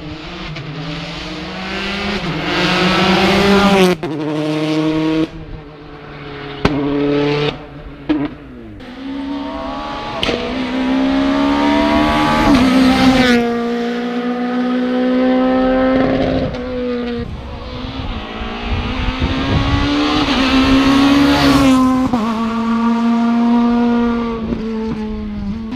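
Rally car engines at full throttle, revving up through the gears, with sudden breaks at each gear change and lift of the throttle. The engine note rises and falls loudly several times.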